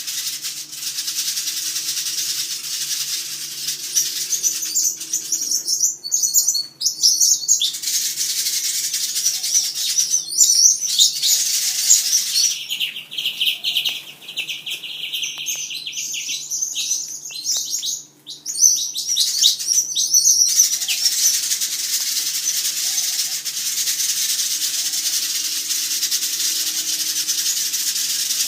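Many small birds chirping and chattering together, growing denser and busier in the middle, with the sound breaking off briefly a few times.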